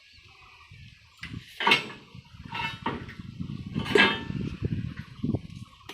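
Steel clanking and banging from an excavator at work, with two loud metallic bangs that ring briefly, about a second and a half apart near the middle, over a low rumble.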